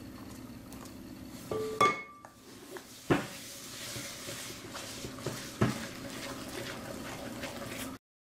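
Wire whisk stirring thick sesame-seed batter in a glass mixing bowl: a steady swishing scrape with three sharp clinks of the whisk against the bowl, the loudest, about two seconds in, ringing briefly. The sound cuts off suddenly near the end.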